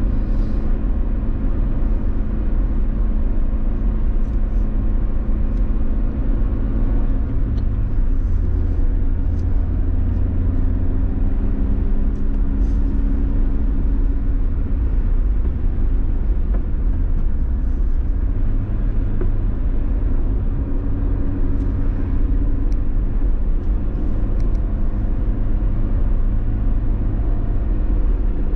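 A car being driven: a steady low rumble of engine and tyres on the road, with the engine note shifting a couple of times and a few faint ticks.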